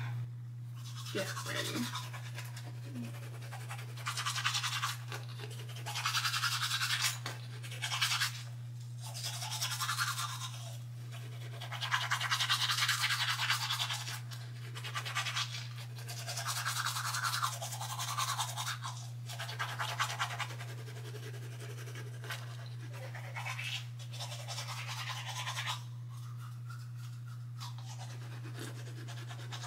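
Teeth being brushed with a toothbrush: bursts of scrubbing strokes a second or two long, broken by short pauses, over a steady low hum.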